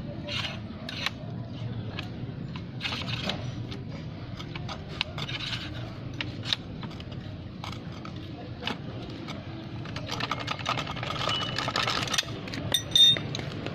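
Metal clicking and scraping from a threaded coil-spring compressor being turned by hand on a strut's coil spring. The clicks come quicker for a couple of seconds near the end, and a sharp metal clink near the end is the loudest sound.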